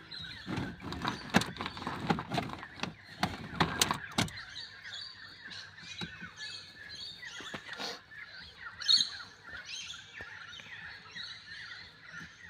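A run of sharp clicks and knocks in the first four seconds or so as screws and parts are worked out of a car's steering column, with birds chirping throughout; one louder chirp about nine seconds in.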